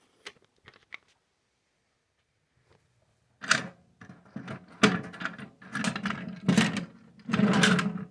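A few faint clicks, then from about three and a half seconds in a run of irregular clattering and rattling strokes.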